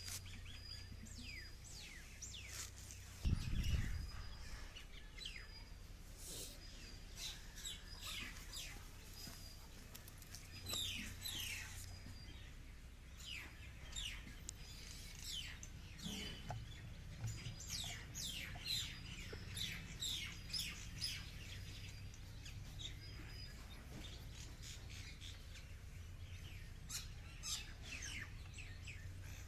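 Small birds chirping again and again in quick, short calls that fall in pitch, over a low steady hum. A dull thump about three seconds in is the loudest sound.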